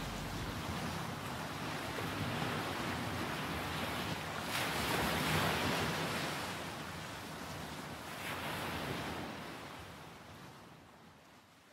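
Sea waves washing in, swelling and falling back twice, then fading out near the end.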